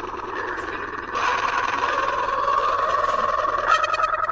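A person's long, drawn-out, high-pitched 'aaah', the build-up of a sneeze that goes on and on. It gets louder about a second in and turns fluttery near the end.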